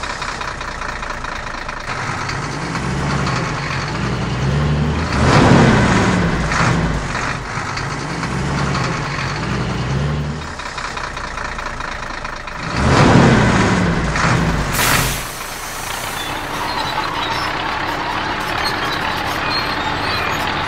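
Heavy semi-truck sound effects: a low wavering engine rumble, twice broken by loud air-brake-like hissing swells, about five and thirteen seconds in. After that comes a lighter, steady engine hum.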